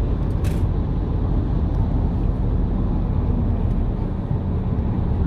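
Steady low drone of a delivery truck's engine and tyres heard from inside the cab while driving, with a short hiss about half a second in.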